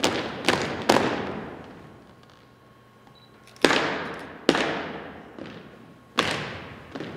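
Drill team's dress shoes stomping in unison on a hardwood gym floor, each sharp stomp echoing and fading through the hall. Two stomps come in the first second, then a pause of about two and a half seconds, then further single stomps spaced about a second or more apart.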